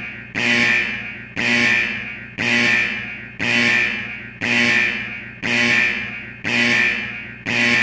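Emergency alert attention tone sounding as a test: one electronic tone pulsing about once a second, each pulse starting sharply and fading away before the next.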